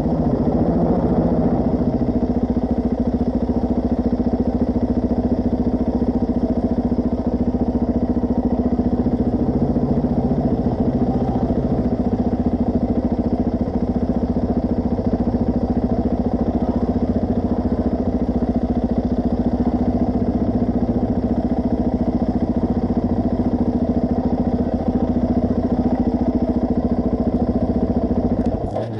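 Suzuki DR-Z400S single-cylinder four-stroke engine running at a steady, even pitch while the bike is ridden along a dirt track. The sound cuts off abruptly near the end.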